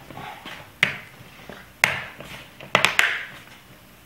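Plastic clips of a Lenovo ThinkPad T430's screen bezel snapping into place as the bezel is pressed on by hand. There are sharp clicks about a second in and again at two seconds, then three in quick succession near three seconds.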